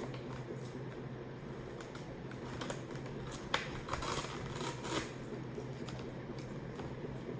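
Helmet lining and pads being pulled out of their fastenings: scattered handling noise with plastic clicks, a sharp click about three and a half seconds in and a few more around four to five seconds, over a steady low hum.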